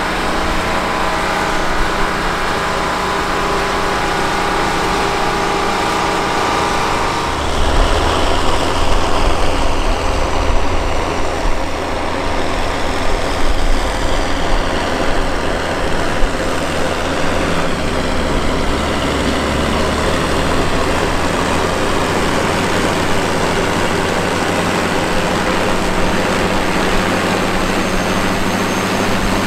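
A green John Deere articulated tractor's diesel running steadily under load while pulling a plow. About seven seconds in it gives way to the Versatile 1150 Custom's Cummins KTA-1150 diesel working hard pulling tillage: a deep, rough drone with a slowly falling whine.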